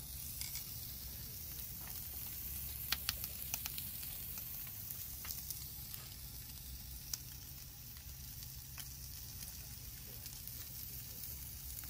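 Chicken and sausages sizzling on the grate of a gas barbecue grill: a steady hiss with scattered sharp pops and crackles, several close together about three seconds in.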